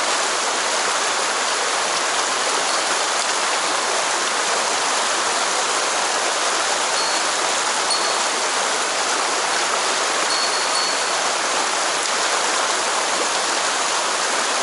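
Mountain stream water rushing steadily, an even, unbroken water noise.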